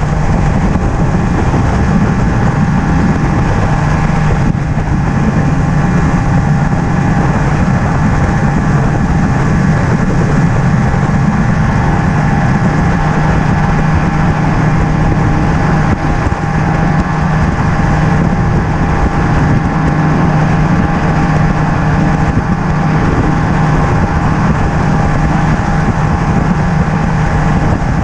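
Mercury Optimax 200 HP outboard, a two-stroke direct-injection V6, running steadily at cruising speed as the bass boat planes across the lake, with wind rushing past.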